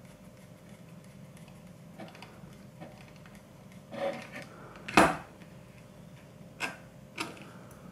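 Screwdriver and small screw clicking against the metal slot bracket of a low-profile graphics card, a handful of sharp metallic clicks with the loudest about five seconds in. The screw is the wrong one, too thin for the bracket's thread, so it fails to bite.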